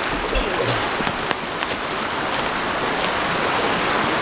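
Steady rush of a rain-swollen creek in flood, with a few light crackles of footsteps in dry leaf litter in the first two seconds.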